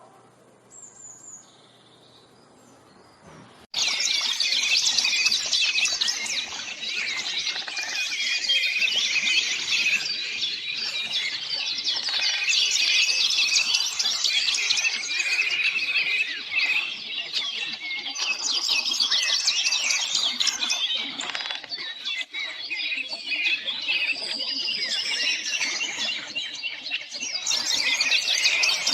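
Many songbirds chirping and singing at once in a dense, continuous chorus of quick high notes, starting abruptly about four seconds in. Before that it is quiet apart from one faint short call.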